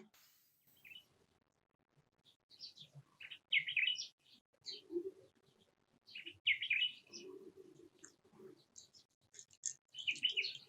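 Bird chirps in short bursts of several quick notes, coming in clusters three times, with some lower sounds in between.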